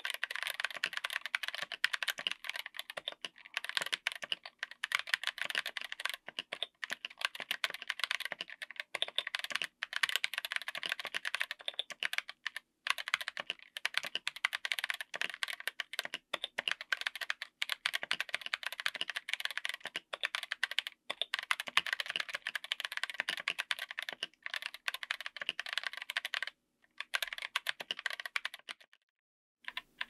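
Mechanical keyboard with Gazzew U4T 65g tactile switches, SA-profile double-shot ABS keycaps, an FR4 plate and an aluminium case, typed on fast: a dense run of keystroke clacks. It breaks off near the end, with one more short flurry before a brief pause.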